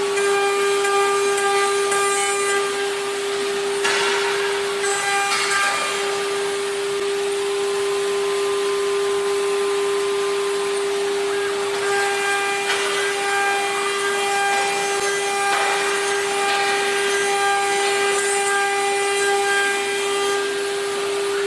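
CNC router spindle carving a round wooden column: a steady high whine throughout, with brief rasping bursts of the bit cutting into the wood a few times.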